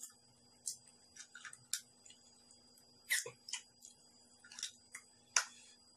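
Eating stir-fried clams by hand: irregular sharp clicks and wet smacks of clam shells and chewing, a few each second, over a faint steady hum.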